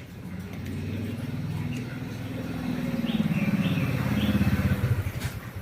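A motor vehicle engine passing by, growing louder toward the middle and fading near the end.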